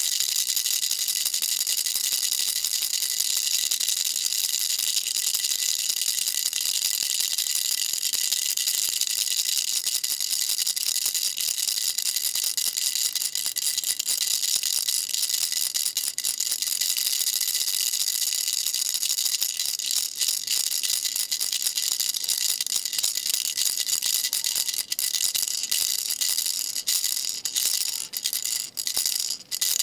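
Baby rattle shaken continuously: a steady, dense, high hissing rattle, broken by a few short gaps near the end.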